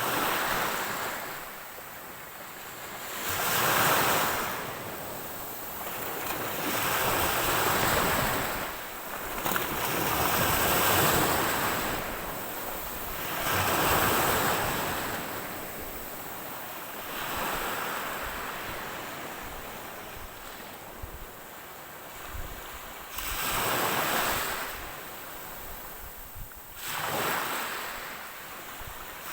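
Ocean waves breaking and washing up the shore, the surf swelling and falling away every three to four seconds, with a calmer spell in the middle before two more waves break near the end.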